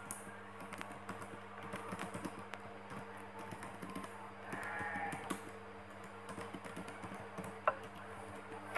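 Typing on a computer keyboard: irregular key clicks as an email address and password are entered, with one sharper click near the end, over a steady low hum.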